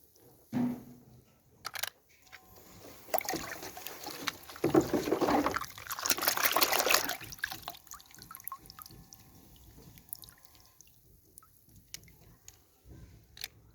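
Liquid sloshing and trickling, mixed with small clicks and knocks, loudest in the middle.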